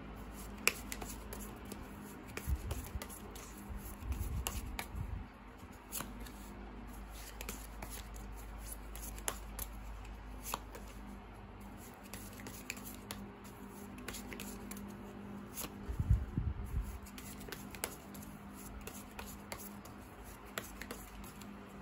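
Tarot cards being shuffled and dealt onto a cloth-covered table: scattered soft clicks and snaps of card stock, with a few dull thuds as cards are set down.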